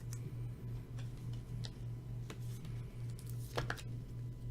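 A few faint clicks of trading cards being handled and sorted, one a little stronger about three and a half seconds in, over a steady low electrical hum.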